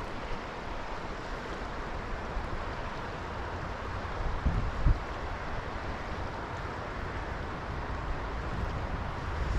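Steady rush of stream water flowing around the wader, with two brief low thumps about four and a half and five seconds in.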